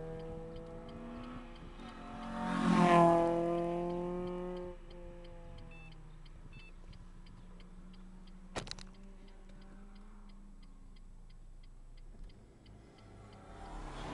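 A car passing close at speed, heard from inside a car cabin: its engine note swells to a peak about three seconds in and falls in pitch as it goes away. A light regular ticking carries on under a quieter engine hum, with a short click about halfway, and another car's engine swells up near the end.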